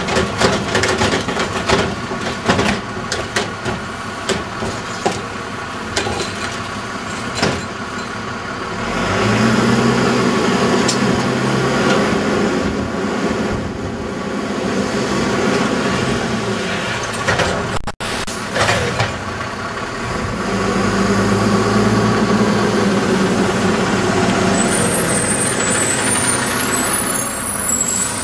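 Front-loader garbage truck with a Curotto-Can automated can at work: metal clanks as a cart is tipped out, then the diesel engine revs up and eases back down twice as the hydraulics lift the can high over the cab. A high squeal comes near the end.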